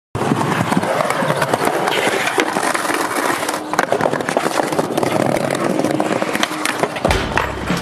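Skateboard wheels rolling on rough concrete, a steady gritty rumble with many sharp clacks and knocks from the board.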